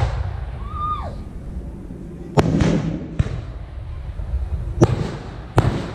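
Aerial firework shells launching and bursting: four sharp bangs, the loudest about two and a half seconds in with a long echo after it, then three more over the next few seconds.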